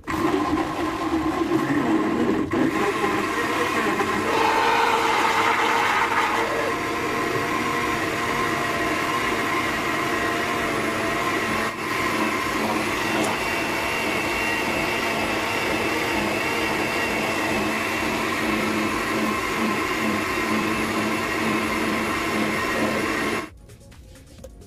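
Electric countertop blender running, blending avocado with milk and honey into a juice. The motor runs steadily, its sound shifting for a moment a few seconds in, and cuts off near the end.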